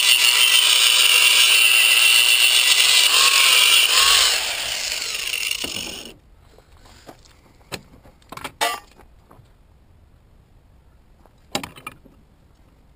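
Power grinder grinding down the hexagonal lollipop-bushing mount of an E46 front control arm to make it round: it runs loud and steady for about four seconds, eases off, and dies away about six seconds in. A few short clanks follow.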